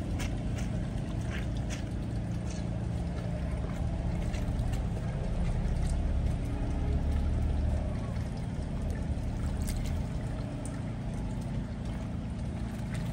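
Laundry washed by hand: wet clothes rubbed and squeezed in a plastic basin of soapy water, with small splashes and squelches, over a steady low hum.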